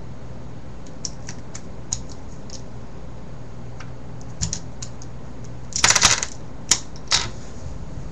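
Plastic pieces of a disassembled Rubik's 4x4 cube clicking against each other as center pieces are fitted in by hand. Scattered light clicks, then a quick cluster of louder clacks about six seconds in and two more single clacks just after.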